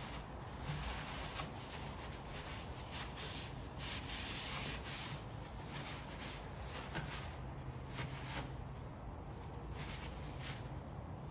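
Irregular rubbing and scraping handling noise, with scattered faint clicks.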